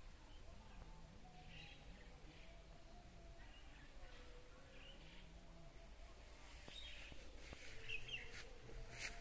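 Faint outdoor ambience with scattered short bird chirps over a low background hiss, and a sharp click near the end.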